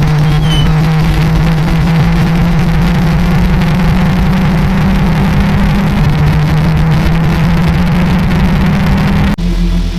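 A loud emergency alarm: a steady, low buzzing drone under harsh noise, holding level and cutting off suddenly near the end.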